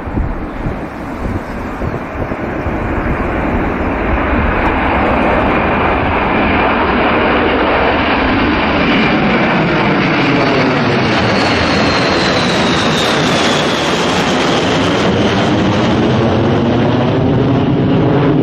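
A B-52 bomber's eight jet engines at take-off power as it climbs out and passes overhead: a loud, steady jet roar that builds over the first few seconds, then takes on a sweeping, phasing sound as the aircraft goes over. A thin whine slides down in pitch midway through.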